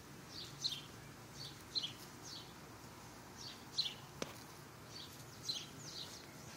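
Small birds chirping faintly: short, high chirps that fall in pitch, repeated about once or twice a second. A single sharp click comes about four seconds in.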